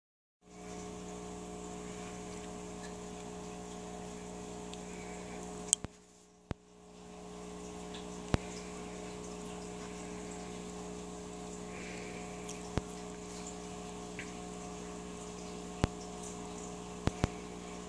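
Steady hum of a running aquarium pump, with a light watery hiss. A few sharp clicks sound through it. About six seconds in, the hum drops away for about a second and then rises back.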